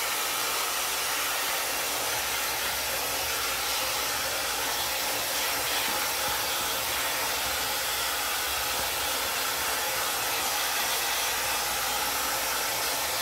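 Hair dryer brush blowing steadily, a dense even hiss of rushing air from its high-speed motor, running on the medium setting with the cold air on.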